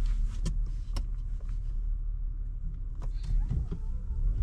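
Low, steady rumble of a car's engine and drivetrain heard inside the cabin while the car reverses into a parking space, with a few brief sharp clicks.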